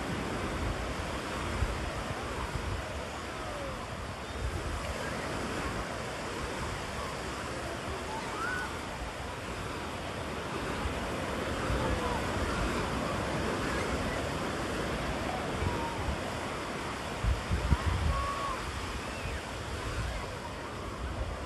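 Ocean surf breaking and washing up a sandy beach, a steady rushing hiss of white noise.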